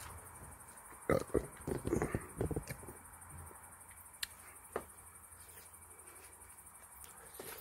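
Insects, crickets by their sound, chirping steadily in a high, fast, even pulse. A quick cluster of knocks and thumps comes about a second in, and single sharp clicks follow a little later.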